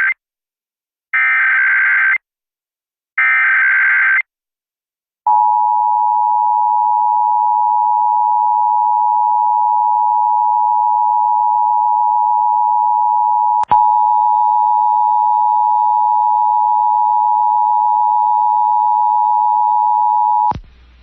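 Emergency Alert System test signal. First come the end of one and then two more short bursts of the SAME header's digital data tones, about a second apart. Then, about five seconds in, the steady two-tone EAS attention signal starts. It has a click near the middle where fainter higher tones join, and it cuts off shortly before the end.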